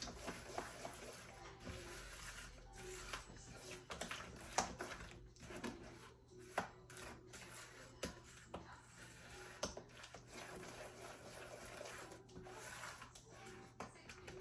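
A utensil stirring a thick mayonnaise-based dressing in a bowl: soft, irregular clicks and scrapes against the bowl.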